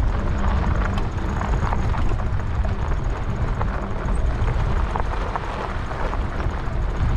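Riding an e-bike: a steady low rumble of wind on the microphone, with scattered small clicks of tyre crunch and rattle.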